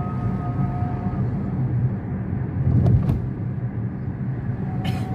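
Steady road and engine rumble inside the cabin of a moving Toyota Corolla, with a knock about three seconds in and a short hiss near the end.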